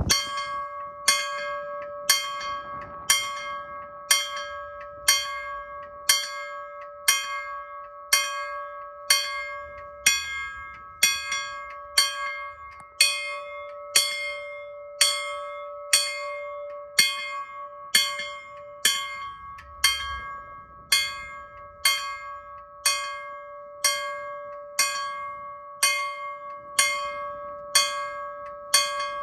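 Danish DSI mechanical railway level-crossing bell striking about once a second. Each stroke rings on until the next one comes. It is the warning that a train is approaching the crossing.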